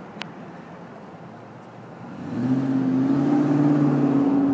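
A motor vehicle engine accelerating close by over steady street traffic noise. It gets much louder about two seconds in and then holds at a steady low drone. There is a single sharp click right at the start.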